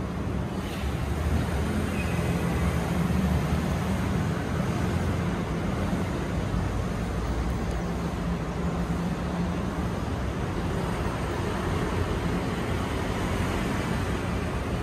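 Steady rumble of city street traffic, with a low engine hum running under it.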